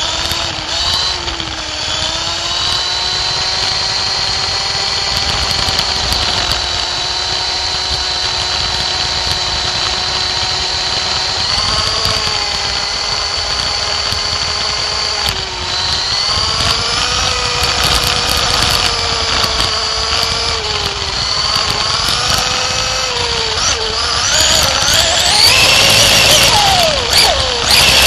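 Onboard sound of a radio-controlled sprint car's motor whining at racing speed, its pitch rising and falling as the car accelerates down the straights and slows for the turns. Near the end it gets louder and rougher, with rattling.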